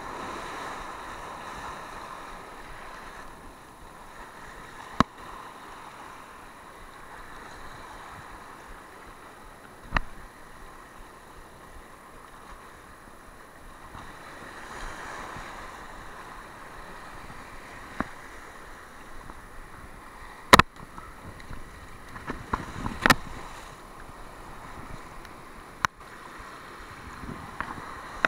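Surf washing over a rocky shore, a steady rushing wash, with a handful of sharp knocks scattered through it.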